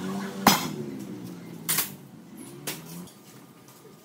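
Dark oil poured from an upturned plastic bottle into a steel drain pan, with three sharp clicks and knocks, the loudest about half a second in. A low steady hum runs underneath and stops about three seconds in.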